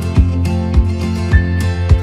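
Background music with a steady beat, a low thump a little under twice a second under held notes.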